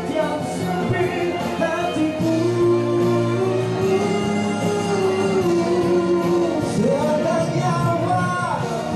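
A man singing a Malay pop song into a microphone, amplified through a PA speaker over backing music. He holds long notes and climbs to a higher held note about two-thirds of the way through.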